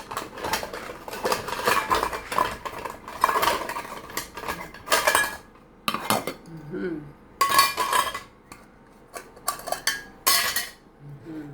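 Plates clattering and clinking as they are handled and stacked, a string of separate knocks and rattles.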